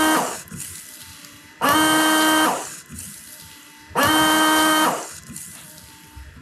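Polaris Ranger windshield washer pump, freshly reinstalled, switched on in bursts of about a second, twice in full: a steady buzzing tone with a fading hiss after each. It is a function check after the repair.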